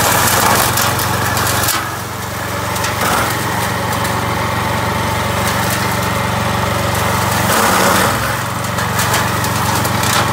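Vezdekos TS 1000 walk-behind brush mower running under load, its engine steady while the blades chop through dense dry weeds and brush and throw out the cut debris. The sound dips briefly about two seconds in and again near the eight-second mark.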